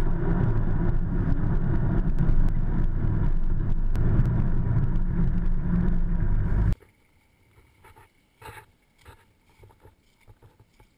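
Off-road 4x4 driving, its engine and road noise loud and steady on a camera mounted on the vehicle's front bar. The sound cuts off abruptly about two-thirds of the way through, leaving only faint scattered knocks.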